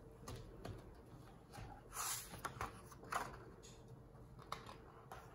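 A hardcover picture book being opened and its pages turned: soft paper rustles and light taps, with the loudest swish about two seconds in and another at about three seconds.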